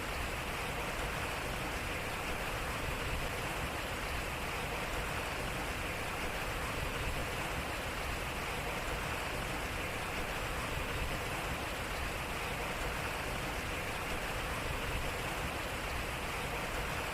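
Water flowing and splashing steadily at a turning wooden-style water wheel, an even rushing noise with no breaks.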